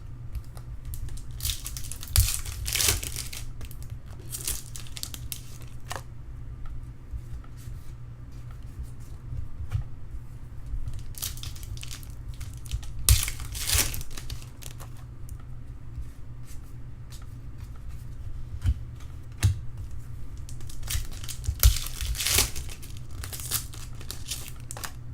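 Sealed trading-card packs being torn open, their wrappers crinkling and rustling in several separate bursts, over a steady low hum.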